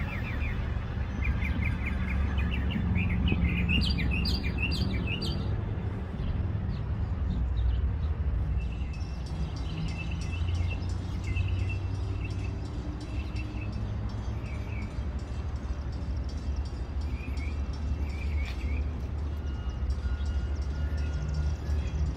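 Small songbirds chirping in quick runs of high notes, busiest in the first five seconds, with scattered chirps again later, over a steady low background rumble.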